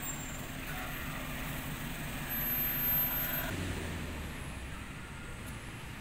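Motor vehicle engine running on a nearby road, a steady low hum that grows loudest about three seconds in and then eases.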